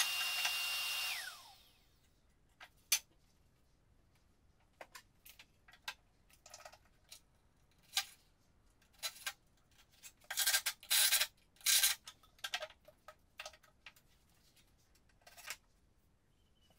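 A power drill running and spinning down about a second and a half in. Then scattered clicks and short scraping rubs follow, the loudest a cluster of scrapes a little past the middle.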